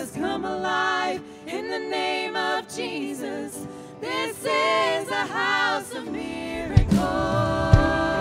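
Live worship song: a woman sings the lead line into a microphone over a sustained keyboard, and the band's drums and bass come in near the end.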